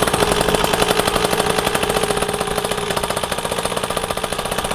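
The small 49cc two-stroke engine of a Gazelle mini dirt bike starts on a pull of the recoil starter with the choke already open. It then runs on at a fast idle with a rapid, even popping.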